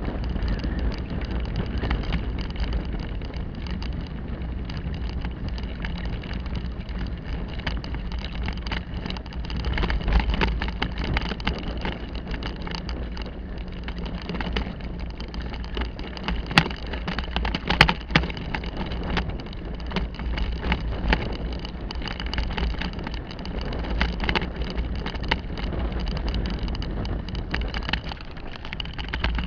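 Bicycle ridden over a bumpy dirt-and-grass track: steady rumble and rattling from the bike and its tyres, with wind noise, and two sharp knocks just past halfway.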